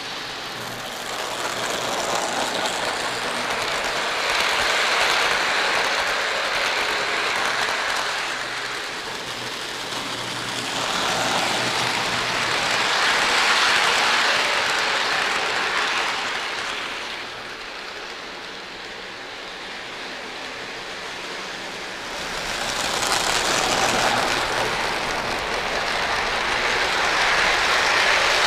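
O gauge model train running on FasTrack, its wheels rumbling and clattering over the plastic-roadbed track. The sound swells loud and fades again each time the train circles past, about every eight to ten seconds.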